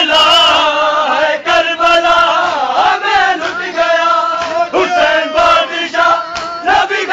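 Male voices chanting a noha (Shia lament) loudly together, the sung lines wavering and breaking every second or so, with a few dull thumps among them.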